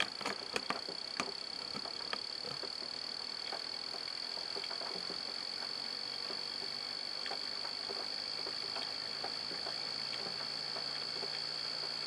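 Homemade reed switch motor running, its metal rotor spinning as the reed switch and coil pulse, giving a fast ticking rattle over a steady high whine. There are a few sharp clicks in the first second, and a low hum comes in near the end.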